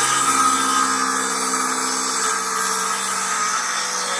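Electric power saw running steadily at full speed, cutting a piece of pressure-treated lumber.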